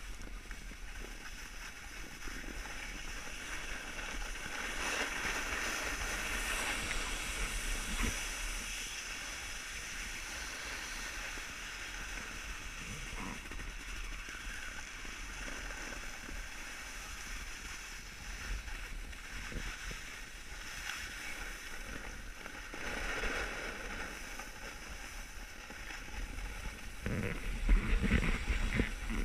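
Steady hiss of skis or a board sliding and carving over packed snow on a groomed slope, swelling with each turn, with louder low rumbling near the end.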